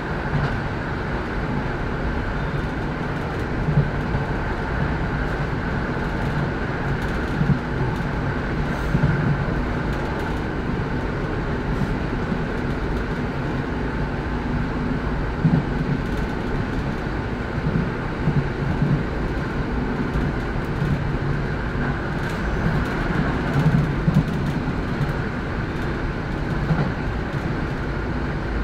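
Passenger-saloon noise of a Class 156 diesel multiple unit running at speed: a steady low rumble from the underfloor diesel engine and wheels on the rails, with a few brief louder knocks along the way.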